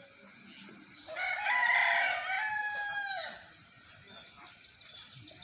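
A rooster crowing once, a single call of about two seconds starting about a second in, ending on a held note that falls away.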